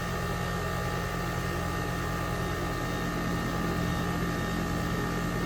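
New 2024 Goodman central air conditioner's condensing unit running steadily in cooling mode: the compressor hums with several steady tones under the even rush of its condenser fan blowing out hot air.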